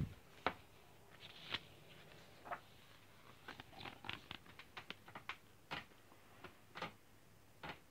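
A hardcover picture book being handled and its pages held up: a sharp knock at the start, then scattered soft rustles and taps of fingers on paper.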